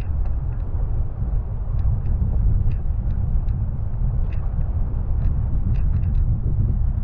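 Low, steady rumble of wind and road noise on a roof-mounted camera's microphone as a car drives slowly along a wet street, with scattered faint ticks throughout.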